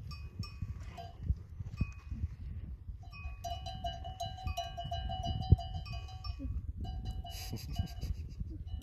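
A small bell hung round a water buffalo's neck clanks again and again as the animal grazes. The ringing grows steadier from about three seconds in.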